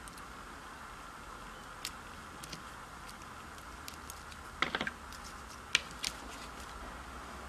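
Light clicks and taps from tweezers, fingernails and folded paper being handled on a cutting mat while a googly eye is set on a paper origami monkey: a few scattered ticks, a quick cluster of taps a little past halfway, and the sharpest click shortly after, over a faint steady hum.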